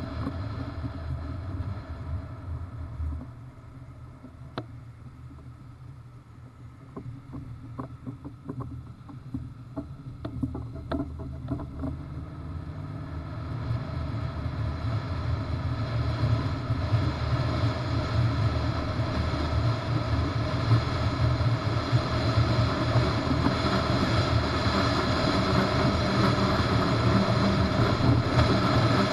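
Wind and road noise on a microphone mounted on a bass boat towed on its trailer behind a pickup truck: a steady low rumble with wind rush. It drops off for several seconds with a few light clicks, then builds up again and stays loud and steady as the rig gathers speed.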